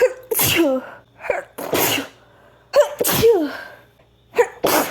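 A woman sneezing four times in quick succession, about one every one and a half seconds, each a short pitched 'ah' catch of breath followed by a loud 'choo'.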